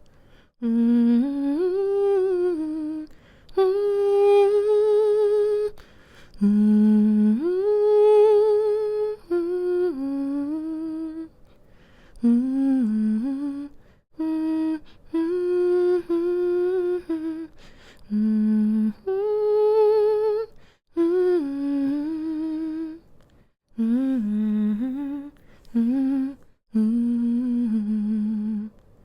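A woman humming a slow, gentle lullaby melody to soothe a baby to sleep, in phrases of a few seconds each separated by brief pauses for breath, with a slight vibrato on held notes.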